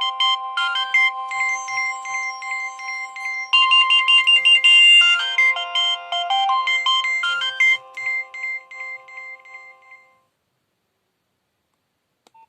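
A Nokia 6030 mobile phone ringtone playing: a quick polyphonic melody of electronic notes over held tones, dying away about ten seconds in.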